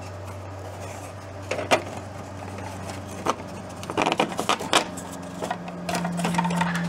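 3D-printed plastic mold parts clicking and knocking together and against a metal baking tray as they are fitted, busiest about four to five seconds in, over a steady low hum.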